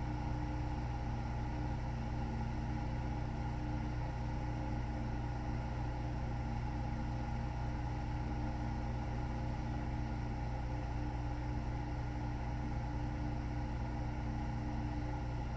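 A steady low mechanical hum at a fixed pitch, unchanging in level throughout, with no breath-by-breath rise and fall.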